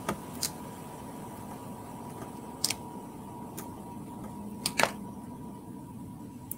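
A handful of small, sharp clicks and ticks, scattered irregularly, as foam adhesive dimensionals are picked and peeled off their paper backing sheet by hand. Under them is a steady low room hum.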